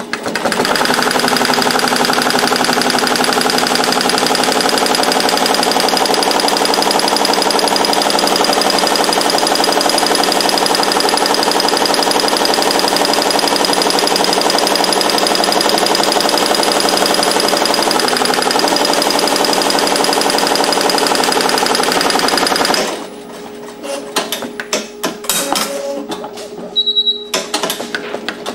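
Barudan multi-needle embroidery machine stitching a cap at high speed, a fast steady chatter of the needle bar. About 23 seconds in the stitching stops, giving way to a few seconds of scattered clicks and a short high beep, and it resumes near the end.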